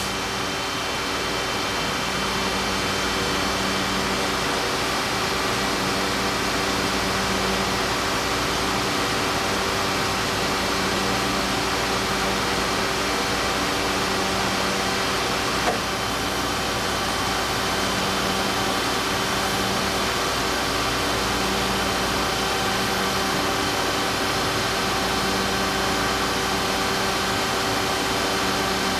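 Industrial laser coil-joining welder running: a steady machine drone with several steady tones. A low hum keeps switching on and off, and a single sharp click comes about halfway through.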